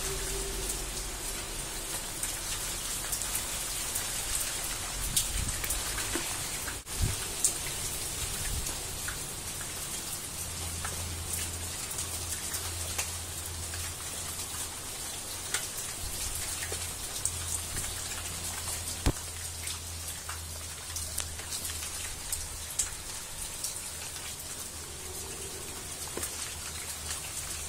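Pouring rain, an even hiss scattered with many small drop clicks and a few louder hits, heard through a phone microphone. A low steady hum runs underneath in the second half.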